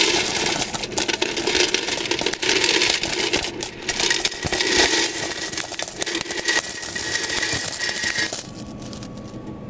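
A large heap of loose vending machine coins clattering and jingling together in a dense run of clinks, stopping abruptly about eight and a half seconds in.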